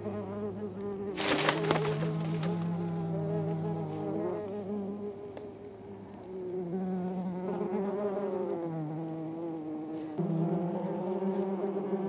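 Wasps buzzing in flight, a droning hum that wavers and shifts in pitch, growing louder near the end. A short, loud rustling burst comes about a second in.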